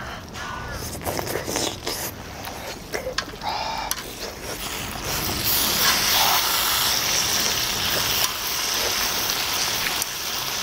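Pork belly and kimchi sizzling on a large pot-lid griddle, with metal tongs clicking and scraping on the pan as the food is stirred and turned. The sizzle gets louder about halfway through.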